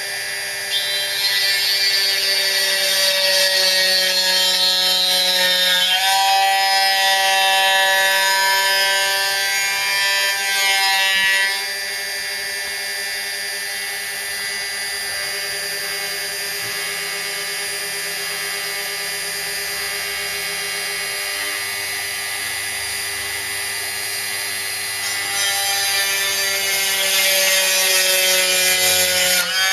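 Mini milling machine's spindle running at high speed while its cutter mills a 1 mm carbon fibre sheet, a steady whine with cutting noise. It gets louder about a second in, drops back a little before the middle, and rises again near the end, its pitch sagging briefly as the load changes.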